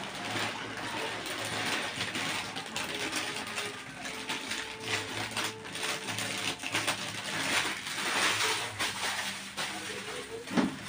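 Pancit canton noodles sizzling in a hot wok over a gas burner, an uneven hiss, with one short, louder sound near the end.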